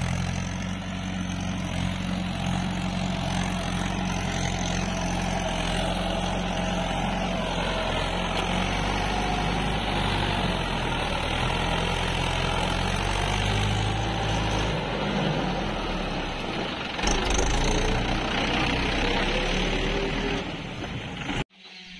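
Mahindra 575 DI tractor's four-cylinder diesel engine running steadily while pulling a trailer loaded with timber logs. The sound cuts off suddenly just before the end.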